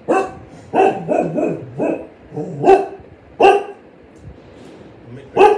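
A dog barking repeatedly: short, sharp barks about every half second to second, then a pause before one more bark near the end.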